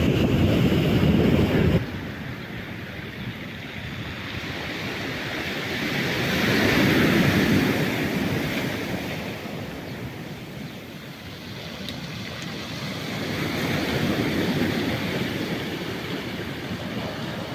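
Stormy sea surf: waves breaking and washing on the shore, the rush swelling and fading with each wave, loudest about seven seconds in and again near fourteen. At the start a louder rush, with wind on the microphone, cuts off abruptly about two seconds in.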